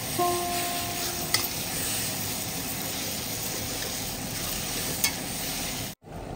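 Food sizzling in a hot pan as it is stirred, a steady frying hiss broken by a few sharp clicks.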